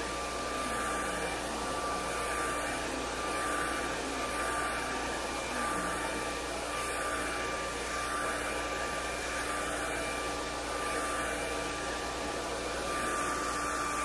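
Handheld hair dryer running steadily: a rush of air with a steady high whine from its motor. The rush swells and fades about once a second as the dryer is moved back and forth over the hair.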